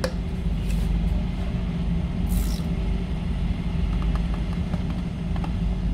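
Pan of soy sauce, balsamic vinegar, honey and melting butter heating toward a simmer: faint pops and ticks and a brief hiss about two seconds in, over a steady low rumble.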